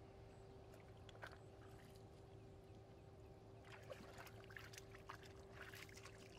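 Rubber boots wading through shallow mud and water: faint at first, then a run of short wet squelches and splashes starting a little past halfway through.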